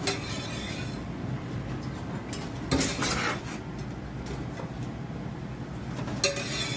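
Spatula scraping and clinking against a frying pan as cooked shrimp are scraped out, with a louder scrape about three seconds in and another near the end, over a steady low hum.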